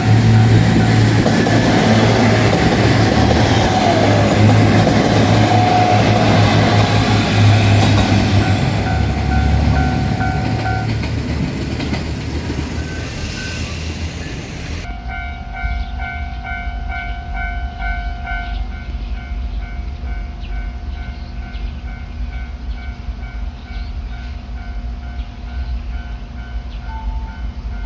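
Japanese level-crossing warning bell ringing over and over in a steady, even rhythm while a train runs loudly over the crossing. The train noise dies away about halfway through, and the bell keeps ringing over a faint low rumble.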